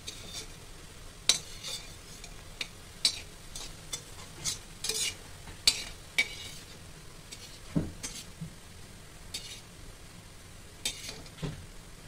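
A perforated metal spatula scrapes and taps irregularly against an iron kadhai as besan pakoras are turned in shallow oil. The oil sizzles steadily underneath.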